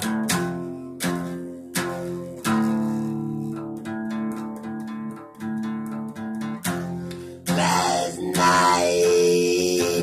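Acoustic guitar strummed chords that ring between strokes; about seven and a half seconds in, a man's voice comes in singing over the guitar.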